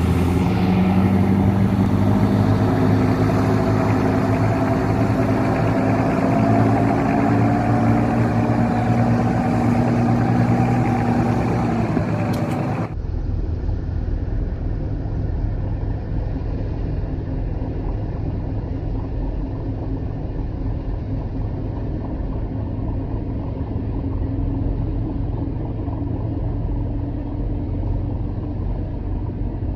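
Boat engine running steadily under way, its pitch creeping slightly upward. About 13 s in the sound cuts abruptly to a duller recording of engines still running steadily.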